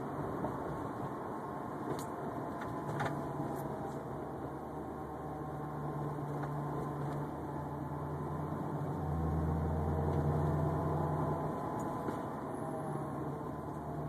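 An unidentified whining noise: a steady low hum with faint wavering higher tones above it, swelling louder about nine seconds in for a couple of seconds, with a few light clicks near the start.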